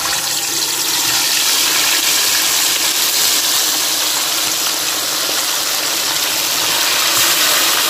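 Marinated chicken leg pieces sizzling in hot ghee in an aluminium kadhai: a loud, steady frying hiss that starts as soon as the first piece goes into the fat.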